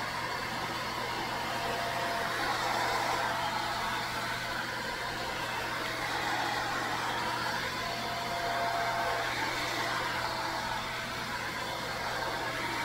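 Steady blowing air noise from a fan-driven blower, with a constant low hum underneath.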